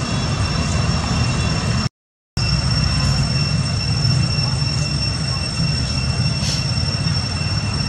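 Steady outdoor background noise: a low rumble under a constant high-pitched whine, broken by a brief dropout to silence about two seconds in.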